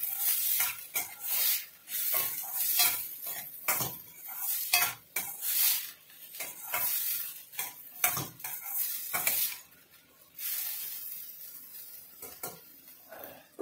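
Steel ladle stirring and scraping diced vegetables in a stainless steel kadai, clinking against the pan in irregular strokes, with the vegetables sizzling over the gas flame. Near the end a lid is set on the pan.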